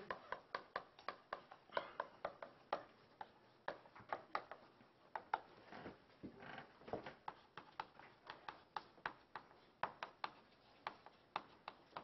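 Chalk on a chalkboard while characters are written: a quick, irregular run of sharp taps, several a second, with a few short scraping strokes.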